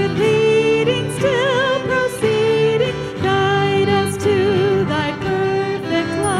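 A woman singing a slow worship song, with vibrato on her held notes, accompanied by acoustic guitar, electric bass and piano.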